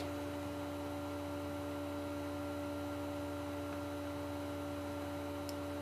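A steady electrical hum with several held, unchanging tones above it. A faint click comes near the end.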